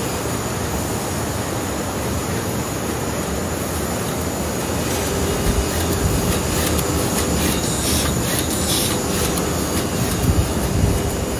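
High-speed sheet laminating machine running: a steady mechanical hum and rattle, with sharper clicking and clatter in the second half.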